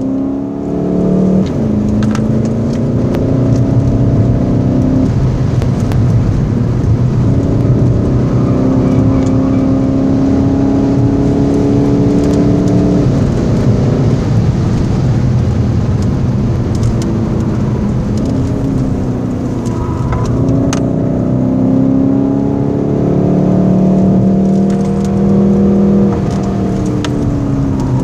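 Golf 7 GTD's two-litre turbodiesel four-cylinder heard from inside the cabin under hard acceleration. Its pitch climbs steadily and falls back several times as the car shifts or eases off, over a constant rumble of tyre and road noise.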